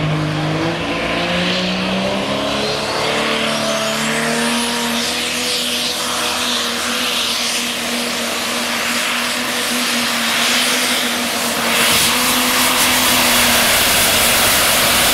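International Light Pro pulling tractor's diesel engine revving up as it launches off the line and pulls the sled at full load. Its pitch climbs over the first few seconds, with a high whistle rising a few seconds in, then holds steady and grows a little louder near the end.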